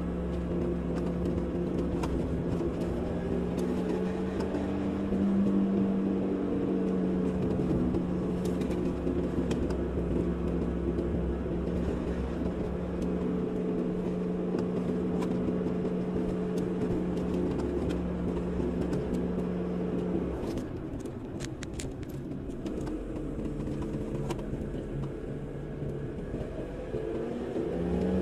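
Car engine and road noise from a moving car: a steady engine hum with tyre noise that falls away about two-thirds of the way through, leaving quieter road noise and a few faint clicks.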